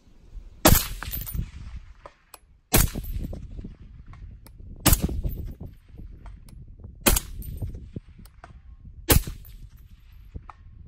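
Five suppressed rifle shots from a semi-automatic .308 AR-10, fired at a slow, even pace about two seconds apart. Each is a sharp report with a brief decaying tail.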